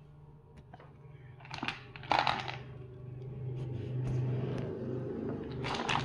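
Metal hand tools clinking and knocking in an open plastic toolbox as it is handled: scattered light clicks, with a cluster of sharper clacks about two seconds in and again near the end, over a steady low hum.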